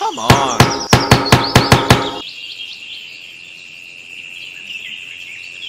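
Quick sharp clicks, about four a second, for the first two seconds, then a steady high-pitched chirring like a cricket.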